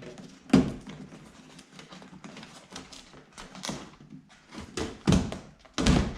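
Clicks, taps and knocks of the plastic access cover and trim inside a car door being worked open by hand. Sharp knocks come about half a second in and twice near the end, with lighter rattling taps between.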